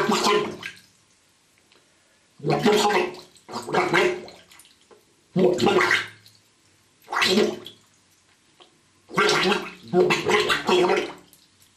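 A man's voice speaking with his mouth under bathwater, the words lost in bubbling and gargling. It comes in short bursts of a second or less with pauses between them.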